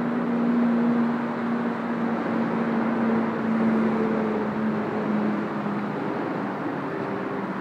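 Pressure washer running steadily: a droning hum under a broad, even hiss of spray.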